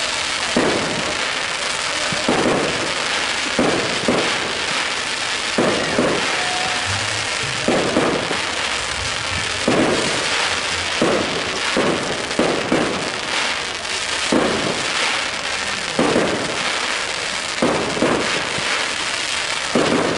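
Aerial firework shells bursting: a sharp bang every second or two, some in quick pairs, over a continuous dense noise from the display.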